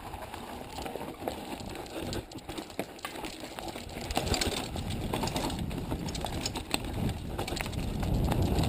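Mountain bike rolling over a dry, stony dirt trail: tyres crunching on gravel and the bike rattling with many small, irregular clicks. A low rumble grows louder from about four seconds in.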